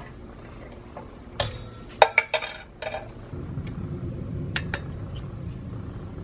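Metal clinks and light ringing from a steel spring clip being pried off a brake caliper with a screwdriver: a few sharp clinks between about a second and a half and three seconds in, then a few faint ticks. A low steady hum sits underneath from about halfway.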